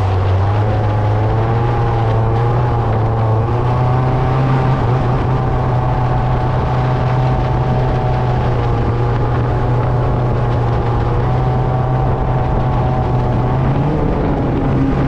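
Toyota 5K four-cylinder engine running loud and steady at a held speed, its pitch stepping up slightly a few times; a fierce-sounding engine note.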